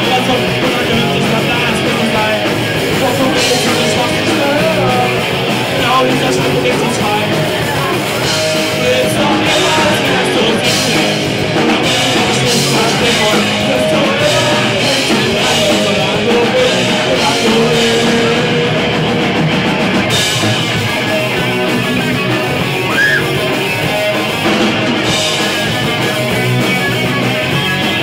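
A live rock band playing loud: electric guitars and a drum kit with crashing cymbals, and a singer's vocals over them.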